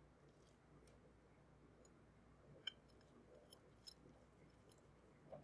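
Near silence with a few faint, sharp clicks from small parts being handled, the clearest about halfway through.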